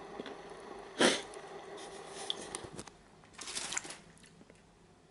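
Handling noises from a pack of grapes being opened: a short, sharp rustle about a second in, scattered light clicks, and a second rustle a little after three and a half seconds.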